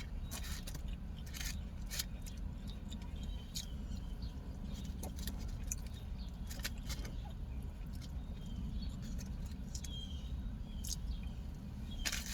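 Close mouth sounds of someone eating: scattered chewing clicks and lip smacks over a steady low hum inside a car.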